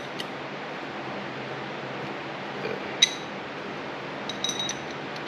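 Small metal throttle-body parts clinking together as they are handled: one sharp clink about three seconds in, then a short run of lighter clinks near the end, over a steady background hiss.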